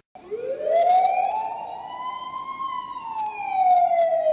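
A siren wailing: one slow rise in pitch over about two and a half seconds, then a slow fall, starting suddenly just after a moment of silence.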